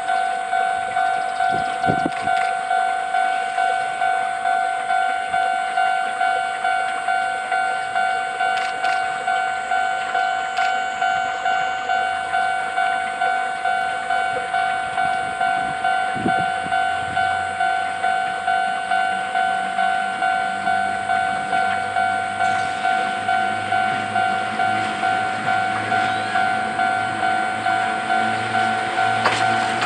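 Railway level-crossing bell ringing steadily, about two strikes a second, while Chichibu Railway's Deki 502 electric locomotive hauls a train of hopper wagons slowly past. The low rumble of its wheels on the rails grows in the second half.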